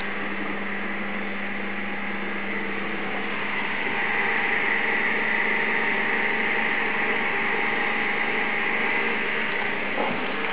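Sewing-machine universal motor spinning a Nipkow disc up toward its 1500 rpm running speed: a steady whirring hiss that grows a little louder about four seconds in.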